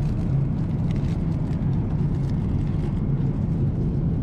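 Steady low hum of a jet airliner's cabin in cruise, with a few faint clicks over it.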